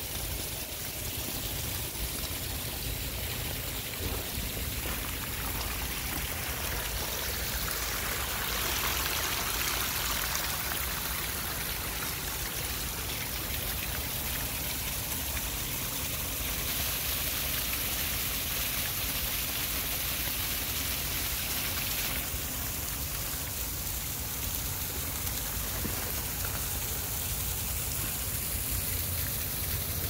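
Water from a stacked-stone backyard waterfall splashing and running down rock steps into a swim pond, a steady rush that swells louder for a few seconds at a time.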